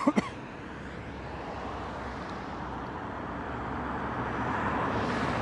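A car passing on the road: steady engine and tyre noise that slowly grows, loudest shortly before the end, then begins to fade. A brief sharp sound and a click come right at the start.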